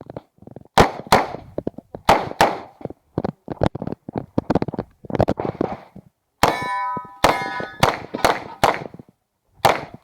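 A string of 9mm pistol shots from an Uzi Pro, mostly in quick pairs, with steel targets clanging and ringing as they are hit. About two-thirds through, one plate rings on for over a second.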